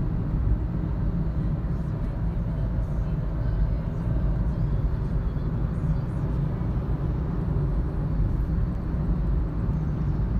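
Steady low rumble of road and engine noise inside a car's cabin while cruising on a highway at about 60 km/h.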